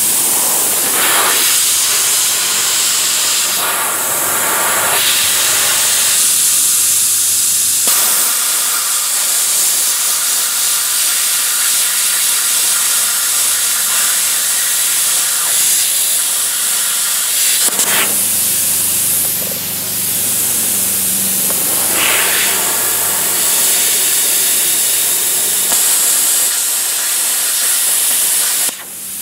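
Handheld plasma cutter torch cutting steel plate: a loud, steady hiss of the arc and air jet that stops just before the end.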